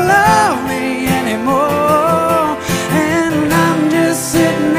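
Live country song: a male voice singing long, bending notes without clear words over acoustic guitar accompaniment.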